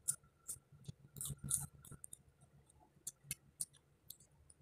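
Faint, irregular crisp clicks and crackles of raw bitter gourd being eaten.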